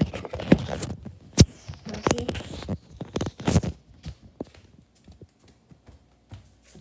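Handling noise from a phone being carried while its holder moves through the house: rubbing and knocks on the microphone, loudest for the first four seconds, then thinning out to scattered faint ticks.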